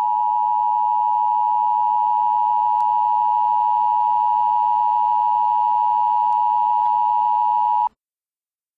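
Emergency Alert System attention signal: a loud, steady two-tone beep just under 1 kHz held for about eight seconds, then cut off abruptly, signalling that an emergency message follows.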